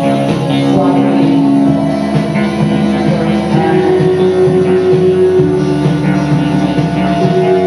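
Live band music made of sustained, droning notes, with the low bass note shifting to a new pitch every couple of seconds.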